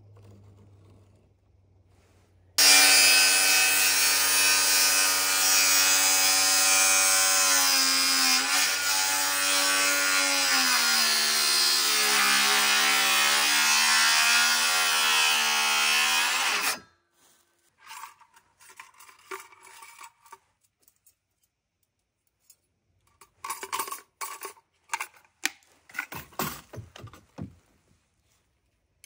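A power saw running at speed and cutting wood for about fourteen seconds, its pitch sagging under load a few times before it stops abruptly. Scattered short clicks and knocks follow.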